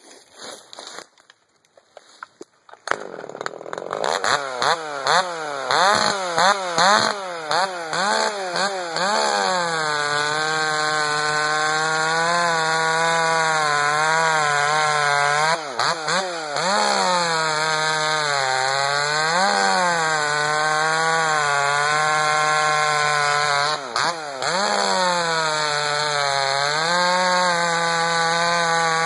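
Ported Partner 5000 Plus two-stroke chainsaw, on a 3/8" chain with a 7-tooth sprocket, cutting red oak. It starts about three seconds in and is revved up and down several times, then runs wide open through the cut, its pitch dipping briefly now and then as the chain is loaded in the wood.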